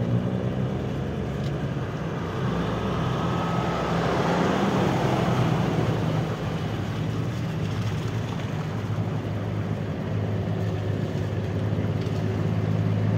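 Small motorcycle engine running at low speed, with tyres hissing on a wet street. A broad rush of noise swells about four seconds in and eases a couple of seconds later.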